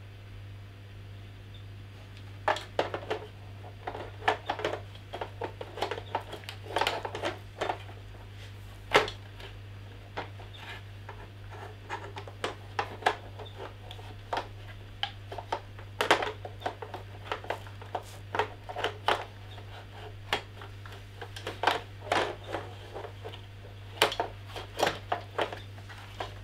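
Acer Predator XB271 monitor stand parts clicking, knocking and scraping as they are handled and fitted together, in irregular clusters of sharp clicks that begin a couple of seconds in.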